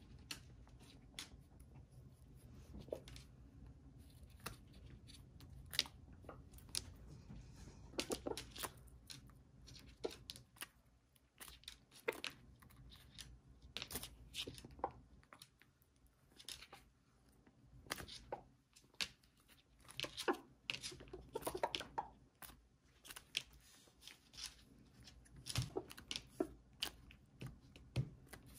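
Serama bantam roosters pecking at napa cabbage, their beaks snapping at and tearing the crisp leaves in irregular sharp clicks and crunches, sometimes several in quick succession.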